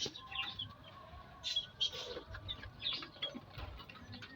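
Aviary birds chirping: many short, high call notes at irregular intervals, with a few lower calls mixed in.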